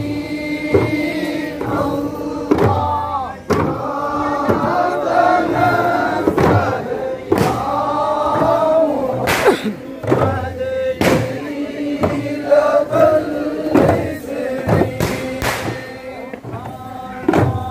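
Group of men chanting Ratheeb dhikr together, with large daf frame drums struck in unison about once a second (duff muttu).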